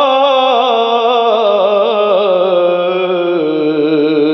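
A man singing a Punjabi devotional rubai in naat style, drawing out one long held note with wavering ornaments that slowly falls in pitch and steps down near the end.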